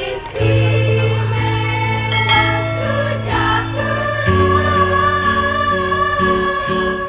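Women's choir singing in parts over sustained low accompaniment notes, with the voices settling into a long held chord about halfway through.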